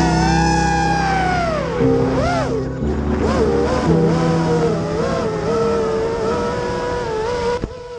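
FPV racing quadcopter's brushless motors whining, the pitch swooping up and down with the throttle, over background music with a steady bass line. Near the end the whine falls away suddenly as the quad comes down.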